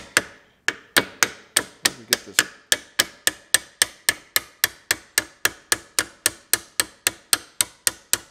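A steel hammer rapidly tapping a rusty, seized tractor tie rod end, about four sharp metallic strikes a second, with a brief pause just after the start. The tapping is meant to knock the dirt loose so the threaded end will turn out.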